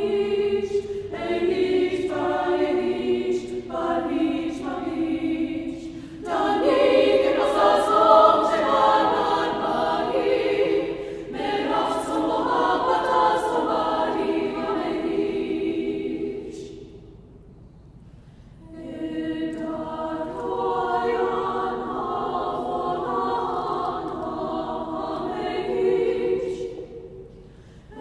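Choir singing sustained, slowly moving chords. About two-thirds of the way through, the voices fade almost away, then swell back.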